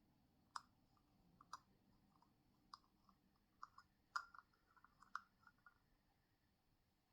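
Small plastic toy pieces and packaging being handled in an unboxing, giving scattered faint clicks and taps, about a dozen over five seconds. The loudest tap comes just after four seconds in.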